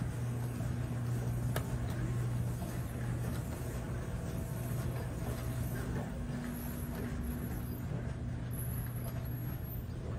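Steady low mechanical hum and background noise of a boat ride's machinery, with none of the ride's show music playing: the show audio has completely cut out.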